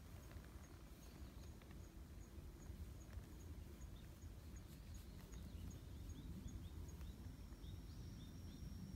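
Faint outdoor ambience: a steady low rumble with small, high-pitched chirps repeating evenly about three times a second, joined about halfway through by a second series of short rising chirps.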